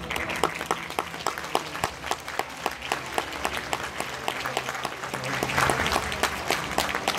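Theatre audience applauding as the music cuts off, with single claps close to the microphone standing out; the applause swells about five and a half seconds in.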